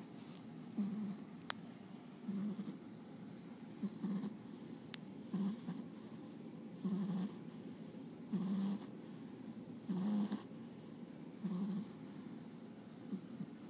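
French bulldog snoring in its sleep: short snores in an even rhythm, about one every second and a half.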